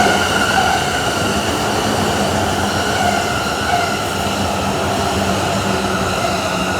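Electric train running: a steady rail noise with several held tones over it.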